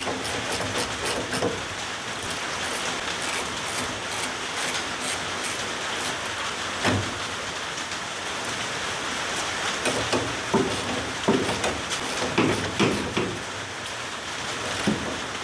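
Hand tools clicking and knocking against metal as trunk hinge bolts are started loosely, in a few short clusters, over a steady hiss.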